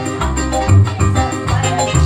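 Live band music with a steady beat, hand drums playing along.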